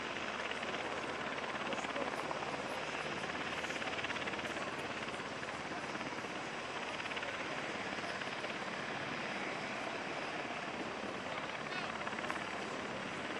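Steady noise of a running aircraft engine, with the voices of a crowd talking underneath.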